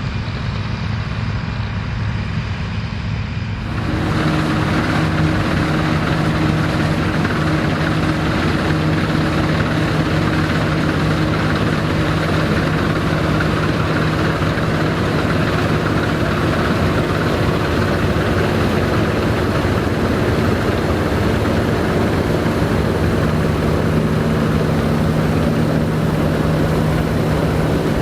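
Vintage Dronningborg D2600 combine harvester running steadily, a machine drone with a steady hum. About four seconds in, the sound jumps suddenly louder and fuller, then holds steady.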